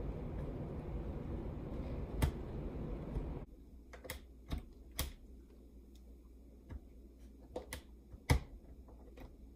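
Singer M1000 electric sewing machine running steadily and stopping abruptly about three and a half seconds in. Then a string of sharp, separate clicks and taps as the machine and fabric are handled.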